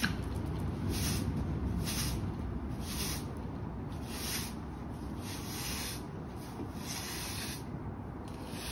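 Hard-bristle broom sweeping dirt and debris across brick pavers: a regular series of scratchy swishes, about one stroke a second.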